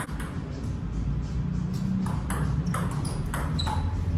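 Table tennis ball being struck by rubber paddles and bouncing on the table during a rally: a series of sharp ticks spaced irregularly, about half a second to a second apart, over a steady low hum.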